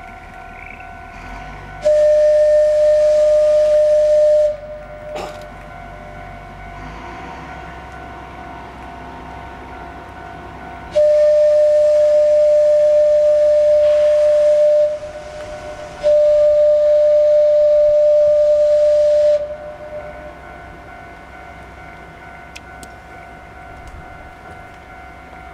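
Kominato Railway Satoyama Torocco locomotive sounding its whistle in three long blasts at one steady pitch with a hiss. The first blast comes about two seconds in, and the second and third follow close together near the middle.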